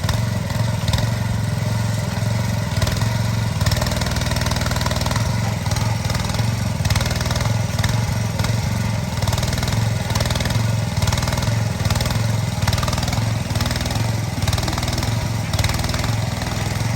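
Mini excavator's small engine running steadily throughout.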